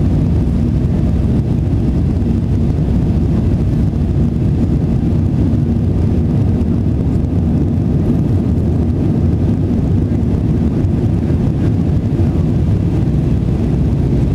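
Steady low roar of an Airbus A319's CFM56 turbofan engines and rushing air, heard inside the passenger cabin during the climb after takeoff, with a faint steady hum in it.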